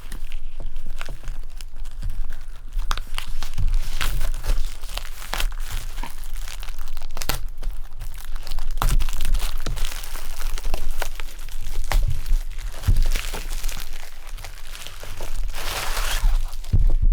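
Plastic wrapping on a boxed collectible set crinkling and tearing as it is pulled off by hand, with many sharp crackles throughout.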